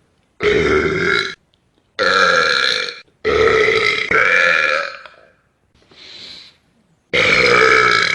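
A man burping loudly several times in a row, each burp about a second long, the third one drawn out longer, with a softer, shorter burp before the last.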